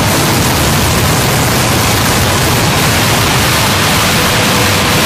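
Harsh noise music: a loud, dense, unchanging wall of electronic noise that fills every pitch from deep rumble to high hiss, with no beat or melody. A faint thin steady tone comes in near the end.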